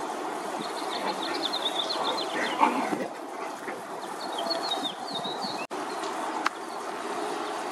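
Birds chirping in quick runs of high notes over a steady outdoor background hiss. The sound cuts out for an instant about two-thirds of the way through, and a sharp click follows.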